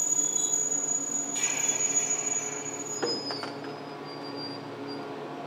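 Nagano Electric Railway 1000 series 'Yukemuri' electric train (ex-Odakyu 10000 series Romancecar) pulling into a station and slowing to a stop, with a high steady squeal from the wheels and brakes over a low hum. A short burst of hiss comes about a second and a half in, and a sharp click about three seconds in, after which the squeal drops to a lower pitch.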